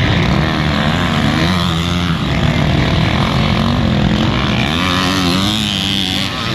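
Several motocross dirt bike engines revving on the track, their pitch rising and falling over and over as they accelerate and back off.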